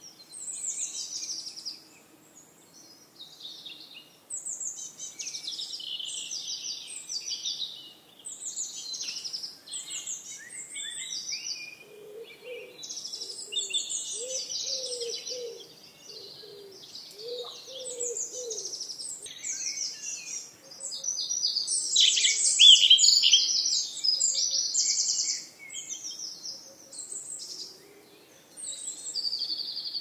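Songbirds singing in chorus, overlapping high trilled and chirping phrases one after another, with the loudest burst a little past the middle. A lower-pitched call repeats several times in the middle.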